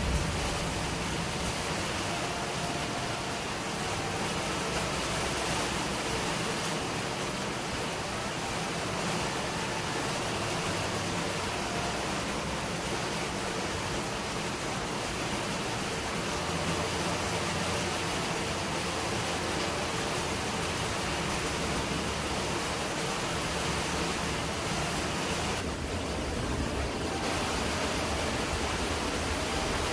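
Strong wind with light rain: a steady, even hiss with a low, gusty rumble beneath it. Near the end the hiss briefly drops for about a second.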